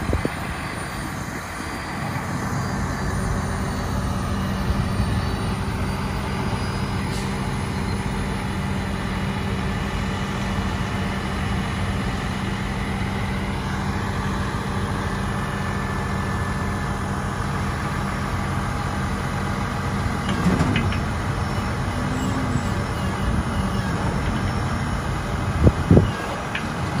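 Freightliner M2 106 grapple truck's diesel engine idling steadily, with a few brief louder knocks near the end.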